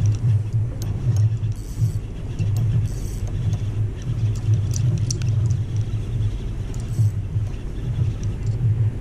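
Heavy, wavering low rumble on the camera's microphone, with faint scattered ticks over it.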